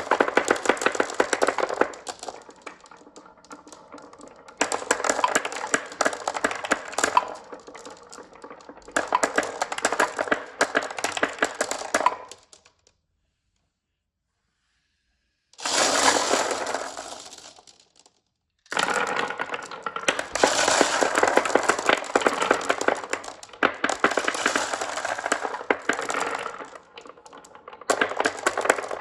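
Marbles rolling and clattering down a marble run track: a dense, rapid rattle of clicks that swells and fades in runs, cutting to silence for a few seconds about halfway through and again briefly a little later.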